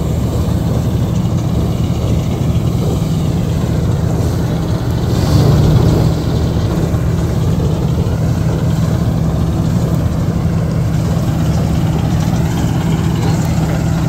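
Kartar 4000 combine harvester's diesel engine and machinery running steadily with a deep drone, swelling louder for about a second around five seconds in.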